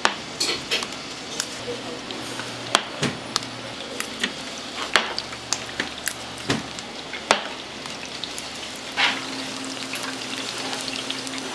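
Fish cakes frying in hot oil, with sharp irregular crackles and clinks over a steady low hum.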